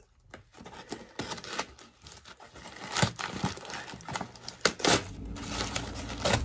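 Plastic mailer bag being cut and torn open by hand, crinkling and rustling, with several sharp tearing strokes.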